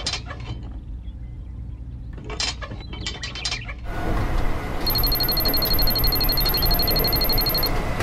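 A few plastic clicks as a toy fuel nozzle is handled, then from about four seconds in a petrol-pump refuelling sound effect: a steady rush of flowing fuel with a high, even electronic tone over it for about three seconds.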